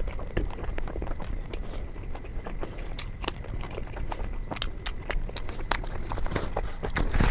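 Close-miked chewing of a bite of naan with paneer: a stream of small irregular wet mouth clicks and smacks. There is a brief louder rustle or breath near the end.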